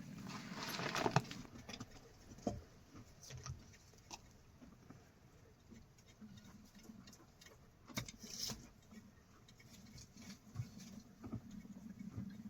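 Irregular light patter of small taps and rustles, with a sharper click about eight seconds in.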